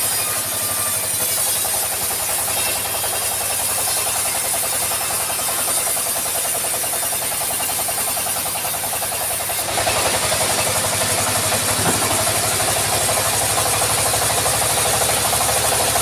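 Engine-driven band sawmill running steadily while its band blade saws lengthwise through a round teak log. The sound grows louder and brighter about ten seconds in.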